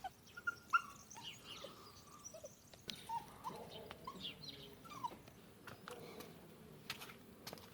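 A dog whimpering in many short, high whines, with a few faint clicks among them.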